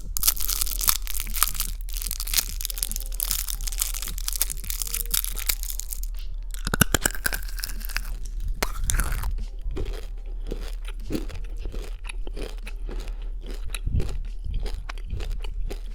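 Close-miked crunching and chewing of Sixlets, small candy-shelled chocolate balls, several chewed at once, with many sharp crunches throughout.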